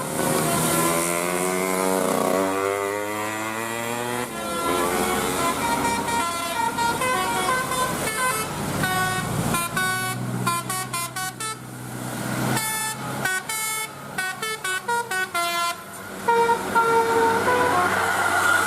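Indonesian bus 'telolet' musical horn playing a tune: gliding tones for the first few seconds, then a melody of stepped notes that turns into a quick run of short separate notes before ending on a few longer ones.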